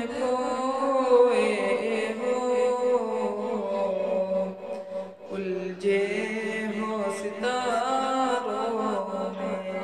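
Solo voice singing an Urdu devotional kalam in long, ornamented notes that glide between pitches, with a brief break about five seconds in.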